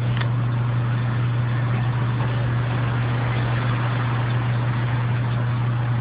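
Small battery-powered handheld car vacuum cleaner running steadily: its little electric motor gives a constant low hum with a hiss of air through the nozzle.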